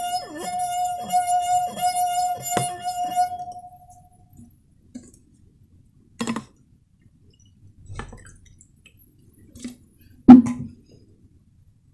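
A brandy snifter with water in it singing under a wet finger rubbed around its rim: one steady ringing tone with bright overtones, which stops about three and a half seconds in. After that come a few short knocks and clunks as a plastic bottle and the glass are handled, the loudest and sharpest near the end.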